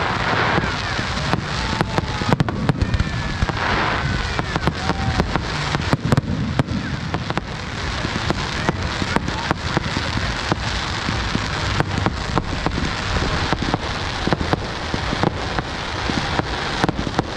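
Fireworks display going off: a dense, irregular run of bangs and crackling pops, with a few thin whistles a few seconds in.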